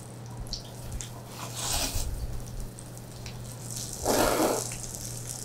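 Cold yeolmu noodles slurped from a bowl: a softer slurp a little before two seconds in and a louder one at about four seconds.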